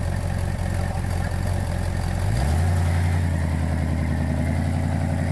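Off-road Jeep's engine pulling under load up a steep rocky climb, running steadily and then revving up about two and a half seconds in.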